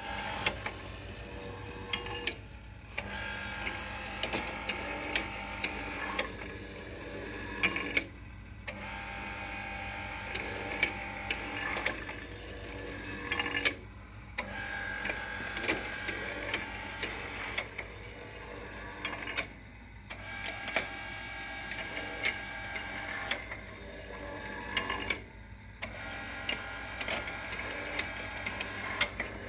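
Belshaw Mark II automatic donut machine running its mechanism: a steady mechanical whirring with many sharp clicks. It stops briefly about every five to six seconds, five times, while a low hum carries on.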